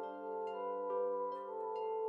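Gentle, slow instrumental background music: held chords with soft new notes coming in about twice a second.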